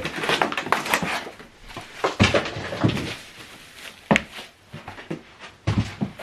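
Cardboard box and packaging being handled during an unboxing: irregular knocks, thuds and rustling.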